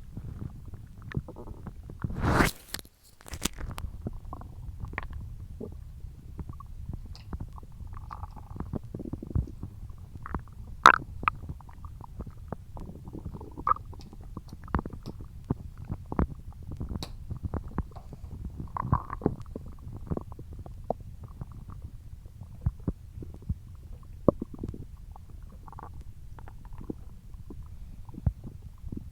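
Human stomach growling: a steady low rumble with many short gurgles and pops, and one louder burst of noise about two seconds in.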